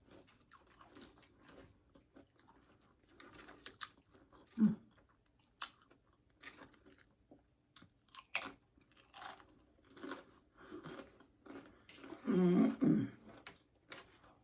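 Close-up chewing and crunching of loaded nachos made on Doritos tortilla chips, in scattered, irregular crunches. A louder, longer mouth sound comes near the end.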